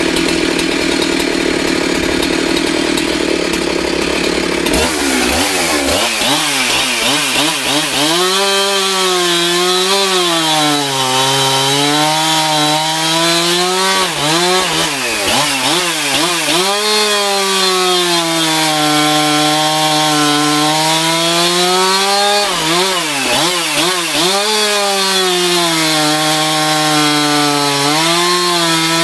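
Husqvarna 372 XP two-stroke chainsaw running at high revs, then from about five seconds in cutting wood: the engine pitch repeatedly sags as the chain bites and climbs back as it frees up.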